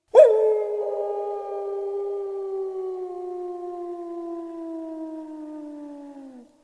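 A canine howl: one long, steady call that starts sharply, then slides slowly down in pitch for about six seconds before breaking off near the end.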